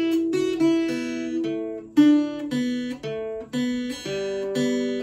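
Acoustic guitar strummed in all-down strokes, the chord notes changing about twice a second as a repeating riff.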